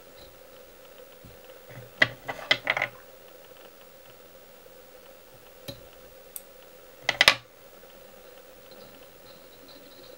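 Small clicks and taps of fly-tying tools and materials handled at a vise: a quick run of clicks about two seconds in, two single ticks, then another short run of clicks, over a faint steady hum.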